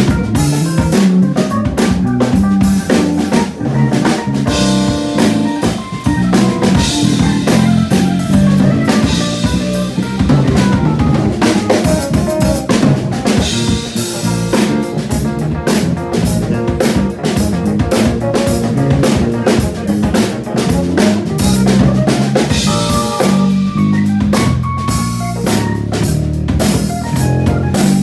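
Instrumental funk groove played live by a small band: a drum kit with snare, bass drum and rimshots, and an electric keyboard playing, over a moving bass line.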